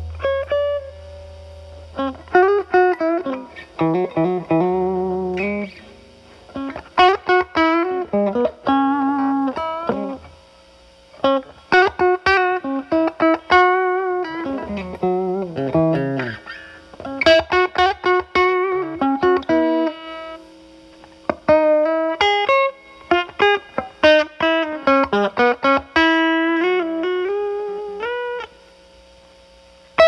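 Electric guitar, a Telecaster with single-coil alnico pickups, played through a Moollon compressor pedal set as a gain boost (attack 3, sensitivity 12) into a Marshall Valvestate amp's drive channel, with the guitar's volume rolled back to clean up the overdrive. A held chord rings out and fades, then single-note lead lines follow, with string bends and short pauses.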